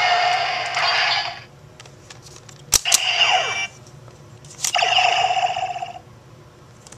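DX Decadriver toy belt's electronic sound effect for the Den-O card plays out in the first second and a half. Then come two sharp plastic clicks about two seconds apart as the belt's side handles are worked and the buckle turns. Each click is followed by about a second of electronic tones with falling sweeps.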